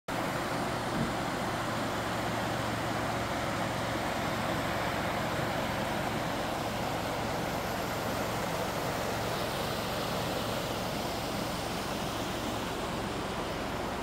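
Steady rushing of a shallow mountain stream running over stones and small cascades.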